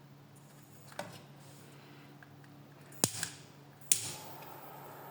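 Handheld butane torch being lit: three sharp clicks of the igniter, the last one near the end catching, followed by the steady hiss of the flame.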